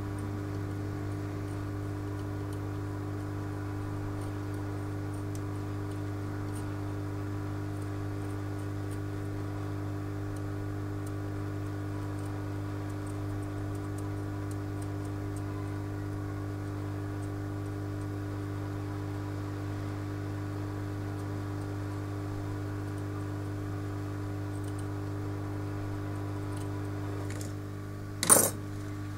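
Steady electrical hum with a few fixed tones, with faint ticks now and then, and one loud sharp clack about a second before the end.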